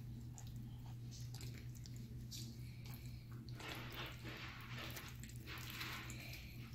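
Soft wet squishing and rustling as a hand handles a gutted striped bass wrapped in a cloth towel, busiest in the second half, over a steady low hum.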